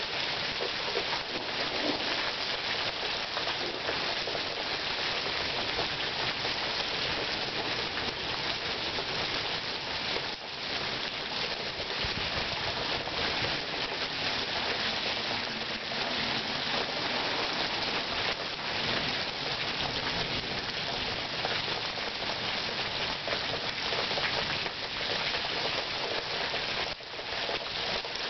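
Rain from a passing thunderstorm falling steadily.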